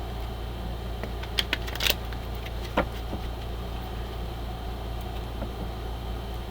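A few short clicks and taps of a deck of oracle cards being picked up and handled, a cluster about a second and a half in and one more near the middle, over a steady low hum.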